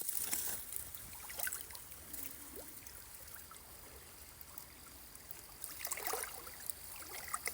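Faint river water running and trickling, with a few small ticks.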